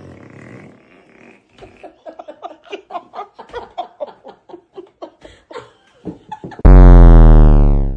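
A quick run of short sputtering bursts, about four or five a second, then near the end one very loud, long fart sound whose pitch sags slightly before it stops abruptly.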